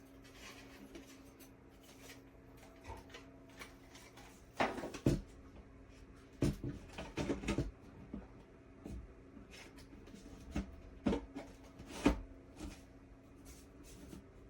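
Small electric fan motor humming steadily, with several short bursts of knocks and clatter from handling, the loudest about five, seven and twelve seconds in.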